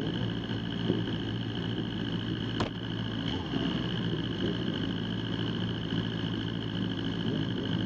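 Vehicle engine idling steadily, with a steady high-pitched whine over it and a single sharp click about two and a half seconds in.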